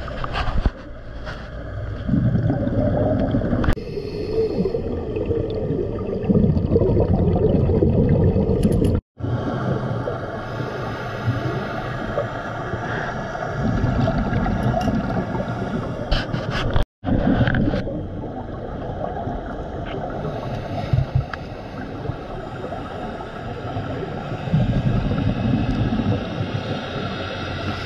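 Underwater sound of scuba divers breathing through their regulators: exhaled bubbles gurgling in loud low stretches a few seconds long, with quieter gaps between breaths. The sound drops out briefly twice.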